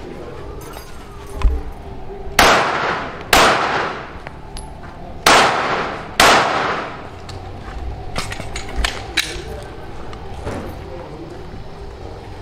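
Four gunshots fired in two pairs, the shots in each pair just under a second apart, each with a short echoing tail, from a dynamic-shooting course of fire. Lighter sharp clicks and clinks follow a couple of seconds later.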